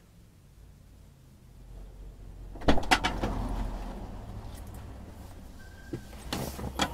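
Car door unlatching with two sharp clicks a little under halfway in, then outdoor noise through the open door and the knocks and rustle of a person climbing into the driver's seat, picked up by a dash cam's built-in microphone inside the cabin.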